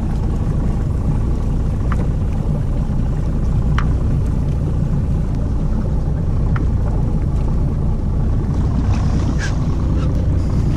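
Evinrude 90 outboard motor idling: a steady low rumble.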